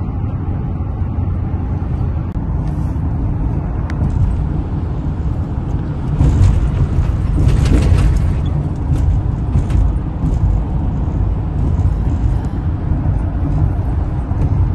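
Car driving through city streets: a steady low road and engine rumble that swells louder for a few seconds in the middle.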